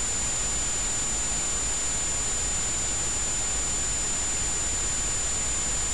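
Steady hiss of recording background noise with a thin, high, constant whine and a low hum underneath, nothing else happening.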